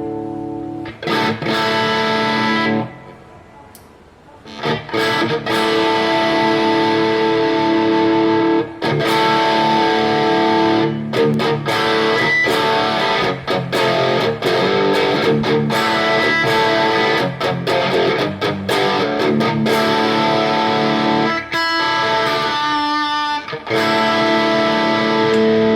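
Electric guitar, a PRS SE Custom 22 semi-hollow, played through a Mesa/Boogie Triple Crown TC-50 amp head. A held chord rings and dies away about three seconds in. A busy run of chords and single-note riffs follows, with a brief break shortly before the end.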